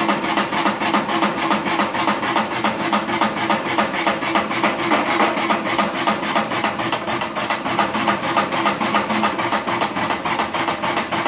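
Homemade electric drum coffee roaster running: the motor turns the steel drum with a loud, steady rubbing rattle and fast, even ticking.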